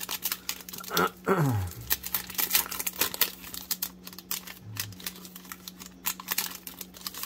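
A foil-wrapped 2020 Donruss Optic trading-card pack being torn open and peeled apart by hand: rapid, irregular crackling and crinkling of the foil wrapper, growing quieter near the end.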